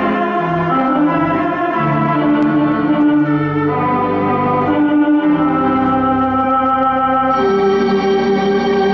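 Theatre organ voices from Theatre Organ in a Box, played on a Yamaha AR-100 organ. Sustained full chords under a held melody, the harmony changing about every two seconds.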